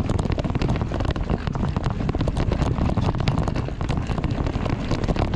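Mountain bike rolling fast down a dirt trail over roots: steady tyre rumble with dense rattling and clattering from the bike over the bumps, and wind buffeting the microphone.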